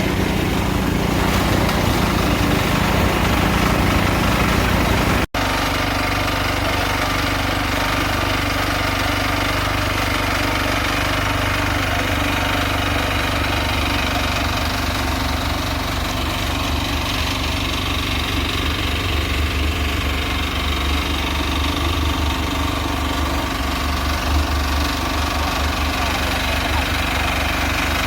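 Small engine running steadily, with a momentary dropout about five seconds in.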